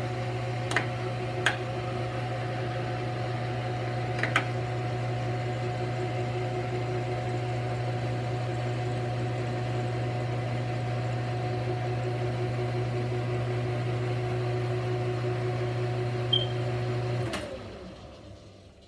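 Metal lathe running with a steady motor-and-gear hum, with a few sharp clicks in the first few seconds. Near the end it is switched off: the hum cuts out and falls away as the machine spins down.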